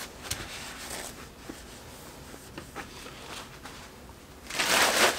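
Plastic sheeting and a trash bag rustling and crinkling as they are handled, with small ticks, then a louder rustle lasting about half a second near the end.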